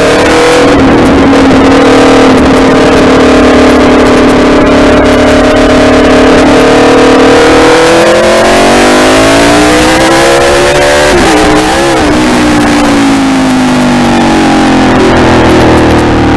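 Aprilia Tuono V4's V4 engine running under way. Its note holds steady, rises about eight seconds in, wavers briefly, then falls away near the end.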